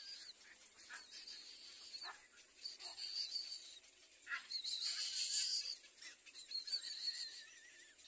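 Little egret chicks calling from the nest: high, short chirps and brief downward squeaks, repeated irregularly.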